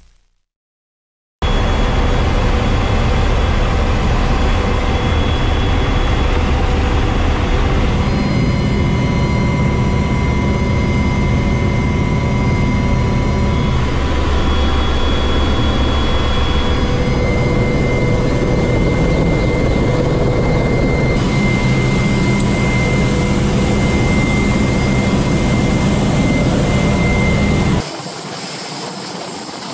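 Inside the cabin of an AW101 Merlin rescue helicopter: steady turbine and rotor noise with a high gearbox whine. It starts abruptly after a second or so of silence. Near the end, with the cabin door open, it turns quieter and thinner.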